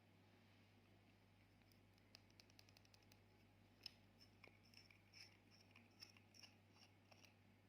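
Faint small clicks and ticks from hands handling small objects: a quick run of about eight a second, then slower, irregular clicks, over a low steady hum.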